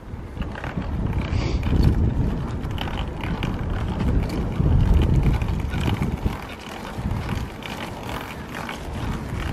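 Mountain bike riding along a paved path: a low rumble of wind buffeting the microphone and the tyres rolling, surging and easing, with frequent small knocks and rattles from the bike and its packs.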